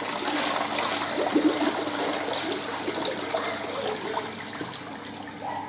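Water rushing and gurgling, gradually dying down.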